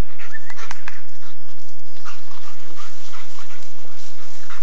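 A rottweiler panting and whining in short repeated bursts, with two sharp clicks just under a second in.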